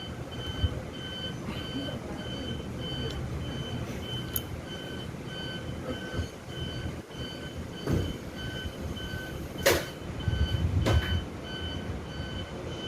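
Electronic beeper sounding steadily, about two short high beeps a second, over a low rumble, with a few sharp clicks and knocks in the second half.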